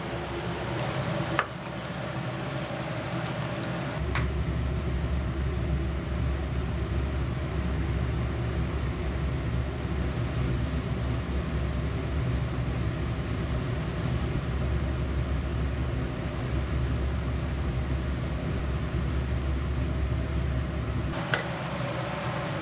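Steady kitchen hum as a pot of curry chanko stew cooks on the stove. The hum grows louder about four seconds in and drops back near the end. There is a sharp click about a second and a half in and another near the end.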